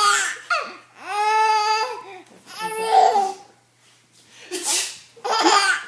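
A four-month-old baby laughing in several bursts, one of them drawn out about a second in. A woman's deliberate fake sneeze is heard about four and a half seconds in.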